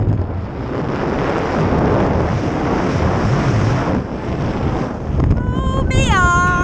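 Wind rushing and buffeting over a wrist-mounted camera's microphone during a tandem parachute descent under an open canopy. Near the end, music with gliding notes comes in.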